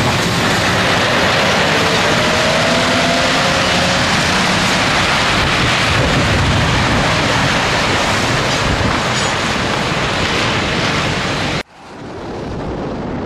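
Scania V8 diesel truck on the move: the engine note is buried under heavy wind and road noise. It cuts off suddenly near the end, leaving quieter wind noise.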